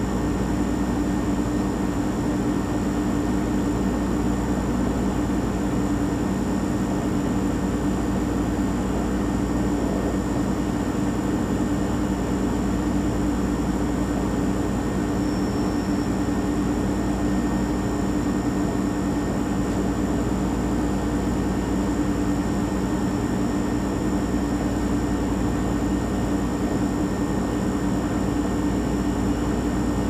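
Refrigerator running: a steady electric hum with a low rumble underneath and a faint high whine.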